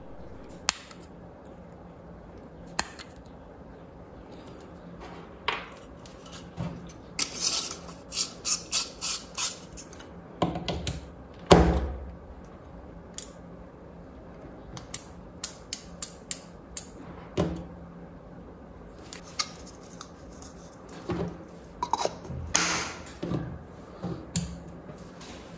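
Irregular clicks, taps and short scrapes of small hard tools and light-bulb parts being handled, with one louder knock near the middle.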